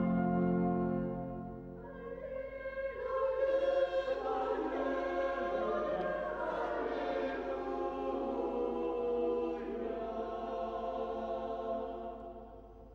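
Small mixed choir singing a short sung response with organ accompaniment after the Gospel reading. The organ holds a chord alone at first, the voices come in about two seconds in, and the music fades out near the end.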